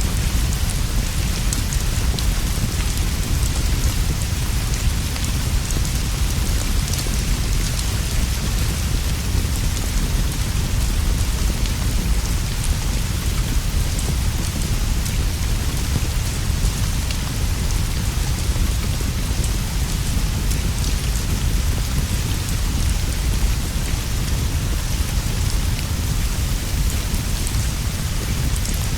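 Steady, even rainfall with a constant deep rumble underneath and faint scattered ticks in the hiss.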